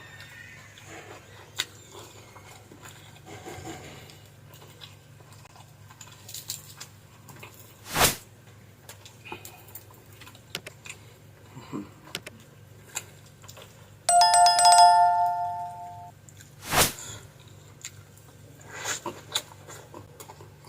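Eating at a table: scattered light clinks and taps of utensils and dishes, with two louder thumps about 8 and 17 seconds in. About 14 seconds in, a ringing chime of two steady tones starts suddenly and fades over about two seconds.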